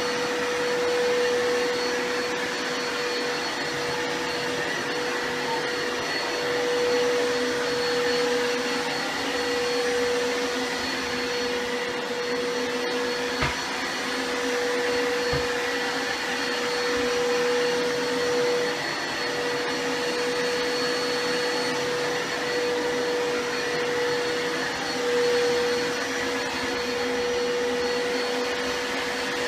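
Vacuum cleaner motor running steadily, with a constant whine over a rushing hum, and a small knock about halfway through.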